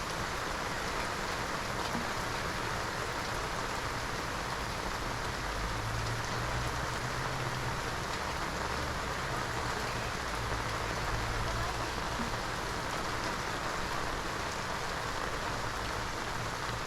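Steady rain falling and pattering on surfaces, an even hiss. A low rumble joins in from about six seconds in and fades around eleven seconds.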